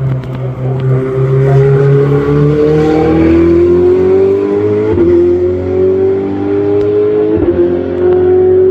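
Racing car engine accelerating hard, its note climbing steadily, with two quick upshifts where the pitch drops about five seconds and seven and a half seconds in.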